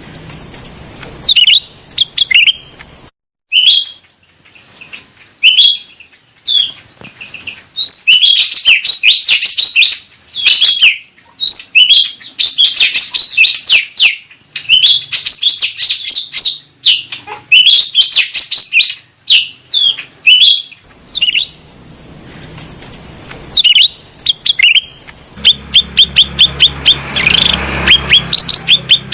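Cucak rante songbird calling: loud, rapid, high chirps and chattering trills in bouts, with a brief break about three seconds in and an even run of quick repeated chirps near the end.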